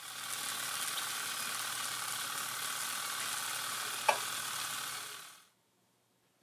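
Chicken wings sizzling as they roast in a toaster oven, a steady hissing crackle with one sharper pop about four seconds in. The sizzle fades out a little after five seconds.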